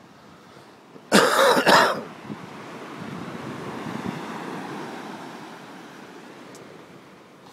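A person coughs a few times in quick succession, loud and brief, about a second in. Then ocean surf washes in as a hiss that swells for a couple of seconds and fades away.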